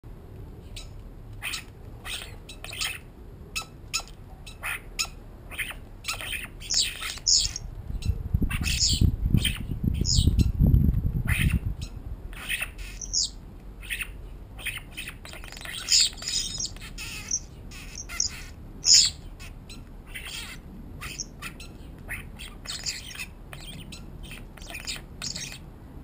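Common starlings squabbling as they feed, giving a rapid run of short harsh squawks and clicks mixed with a few whistled notes. A low rumble swells and fades between about eight and twelve seconds in.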